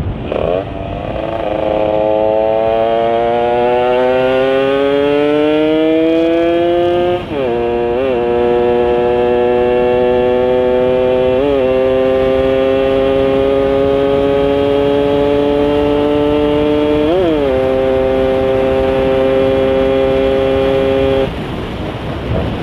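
Yamaha Sigma two-stroke engine, fitted with an Uma Racing 30 mm carburettor and a 'kodok' intake manifold, revving hard under acceleration. Its pitch climbs steadily, with four quick gear changes (the first two close together), then holds at high revs until the throttle closes near the end. The carburettor setting is not yet fully dialled in.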